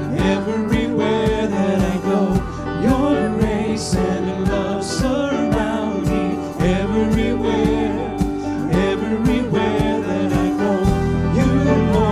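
Live worship band playing a slow gospel-style song, with a woman and a man singing together over drums and electric guitars at a steady beat.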